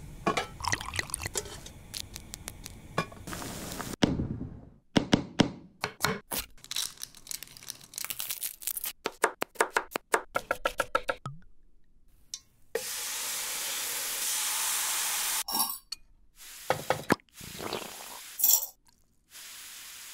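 A run of close-up cooking sounds: a match lighting a gas stove burner, then a knife chopping garlic on a stone slab in rapid strokes. Next comes a steady sizzle in the pan for a few seconds, then scattered clinks and knocks and a metal spoon stirring sauce in a cast-iron pan near the end.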